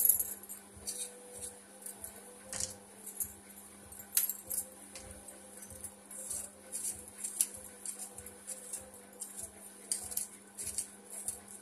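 A kitchen knife scraping and peeling the skin off taro roots (arbi) over a plastic plate: soft, irregular scrapes and light clicks, about one or two a second.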